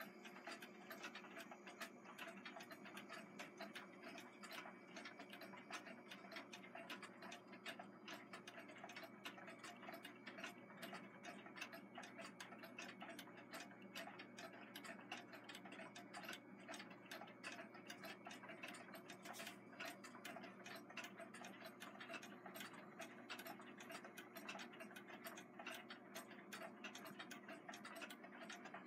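Many vintage nickel-plated Westclox wind-up alarm clocks ticking together, their faint ticks overlapping in a dense, uneven patter with no single beat.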